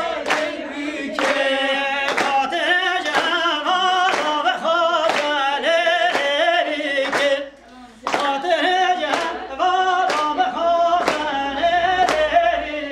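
Voices singing together, with hand clapping in time at about two claps a second. The sound drops out for a moment a little past halfway, then the singing and clapping go on.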